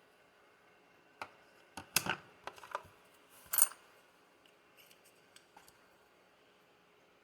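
Small hard parts handled on a bench: clicks and light clatter as a shim and plastic rear suspension arm are fitted to an RC buggy's C block. The clicks come in a cluster between one and four seconds in, the loudest near the end of it, followed by a few faint ticks.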